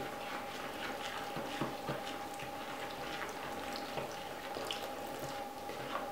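Water trickling from a glass into a plastic bowl of dry bread mix while a spoon stirs and scrapes through the flour, with small scattered clicks.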